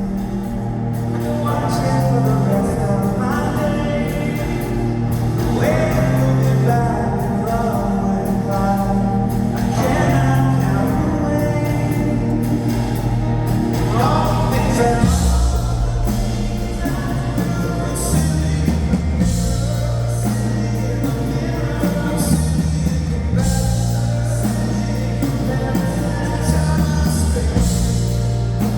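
Live band playing a rock song, with a voice singing long, sliding notes over a steady beat of drums and bass.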